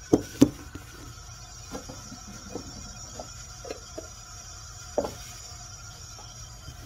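Household knocks and taps of things being handled: two sharp knocks in quick succession at the start, then scattered lighter taps and clicks, with another knock about five seconds in, over a faint steady hum.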